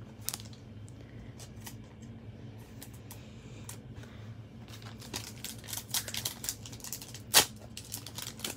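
Foil trading-card pack wrapper crinkling and cards being handled: a scatter of light rustles and clicks, busier in the second half, with one sharp snap near the end.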